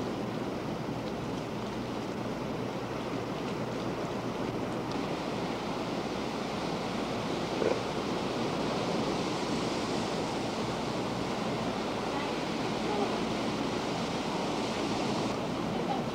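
Steady rushing of ocean surf and wind on the camcorder microphone, a little brighter in the middle stretch.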